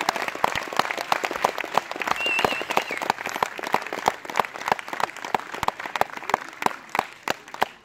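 Audience applauding in a hall, with a short whistle from the crowd about two seconds in. The clapping thins out toward the end.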